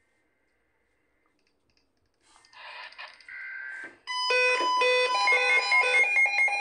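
Emergency alert attention tone, a snow squall warning alert: a loud pattern of several beeping tones switching rapidly between pitches, starting about four seconds in after a quieter, muffled sound.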